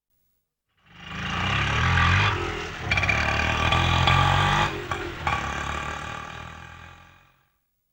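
Auto rickshaw engine running and revving. It fades in about a second in, dips briefly about five seconds in, and fades out near the end.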